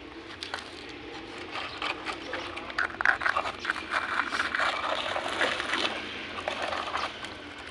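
Plastic toy cars being handled and pushed about: scraping and clicking, busier in the second half.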